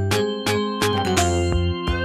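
Background music played on synthesizer and keyboard, with a steady beat.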